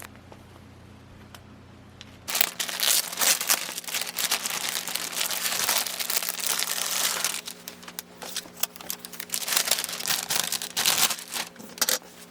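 Plastic packaging crinkling and rustling as it is handled, starting suddenly about two seconds in and continuing in dense, crackly bursts almost to the end.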